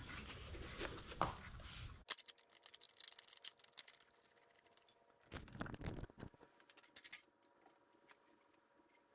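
Faint clicks, scrapes and rustling from parts being handled, with a short louder rustle about five seconds in and a sharp click soon after.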